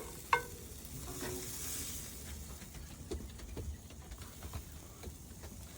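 Grilled Cornish hens and steaks sizzling on a hot grill as they are lifted off, with two sharp clicks right at the start and scattered light taps after.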